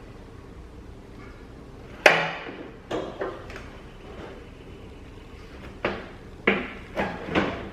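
A series of sharp knocks and clanks with short ringing tails: one loud hit about two seconds in, a couple more a second later, and a quicker run of four near the end, from tools and metal parts being handled while fitting a car's front fender.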